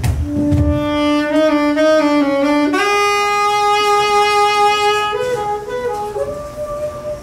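Solo saxophone played live, holding long sustained notes that step upward: a low note with slight bends, then a higher note held about two seconds about three seconds in, a wavering passage, and a still higher note near the end.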